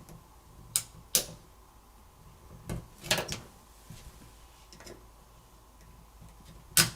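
Scattered sharp clicks and taps of a small tool on the phone's parts as the cover over a connector is pried off: two in the first second and a half, a cluster about three seconds in, and a louder one near the end.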